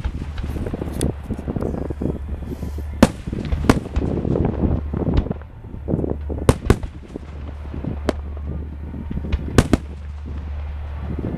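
Fireworks display: aerial shells bursting in a string of sharp bangs at irregular intervals, some in quick pairs, over a steady low hum.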